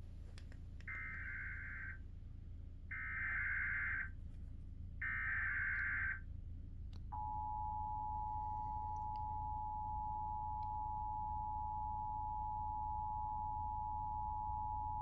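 Emergency Alert System tones for a severe thunderstorm warning: three one-second bursts of buzzy SAME digital header data, about a second apart, then the two-tone attention signal (853 and 960 Hz sounded together) held steady for about eight seconds, which heralds the spoken alert.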